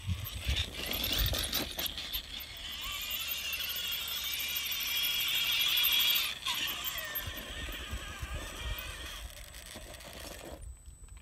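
Electric motor and gear drivetrain of a radio-controlled rock crawler whining under load as it climbs rock, the whine building to about six seconds in and then dropping away to a fainter, lower whine. A few clicks and knocks of the tyres on the rock in the first two seconds.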